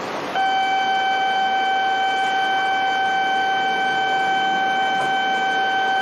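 A station platform's departure buzzer sounding one steady, unbroken high electronic tone, starting about half a second in. It is the signal that the Shinkansen at the platform is about to depart.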